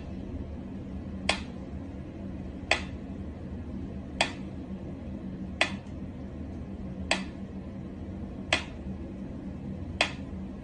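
Mechanical pyramid metronome ticking at a slow tempo, one sharp tick about every second and a half as its pendulum swings.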